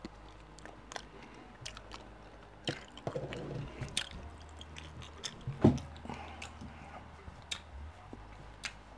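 A person eating close to the microphone: quiet chewing with scattered wet mouth clicks and smacks, the sharpest a little before six seconds in.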